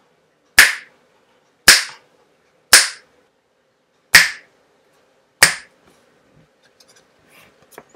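Five sharp hand claps, about one a second, used as the loud-sound trigger that switches a micro:bit's light on and off.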